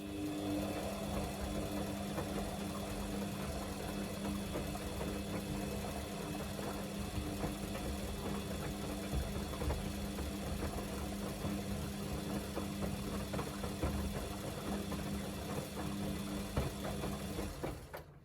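Samsung washing machine running a Darks 40°C wash: a steady motor hum with a fixed low tone and a light mechanical rattle. It cuts off abruptly near the end.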